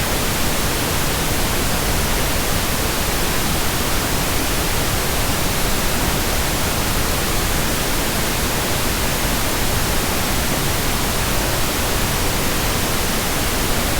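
Pink noise test signal: a steady, even hiss spread across the whole range with no change, used for equalising and calibrating audio systems.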